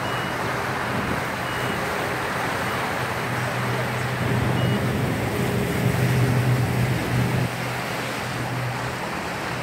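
A small motorboat's engine running at speed, a steady drone under the rushing water of its wake. The engine gets louder about four seconds in, then eases off about seven and a half seconds in.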